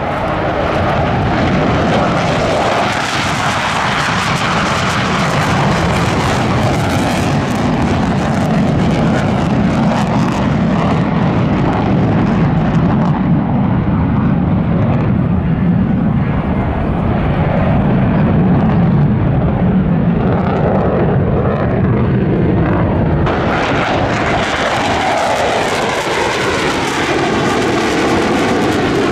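JASDF F-15 fighter jets flying past in formation, their twin jet engines making a loud, continuous roar. The hiss fades from the sound in the middle and comes back suddenly sharper about three quarters of the way in.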